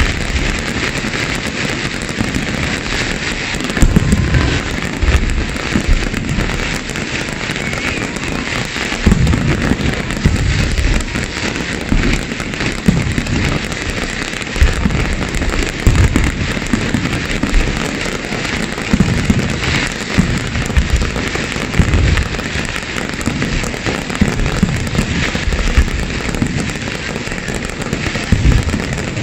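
Aerial fireworks display: a steady, dense crackle with deep booms from bursting shells every second or two.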